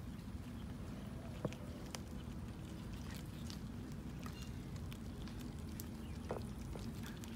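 Cats chewing raw fish: scattered small wet clicks and crunches, one sharper click about a second and a half in, over a steady low background hum.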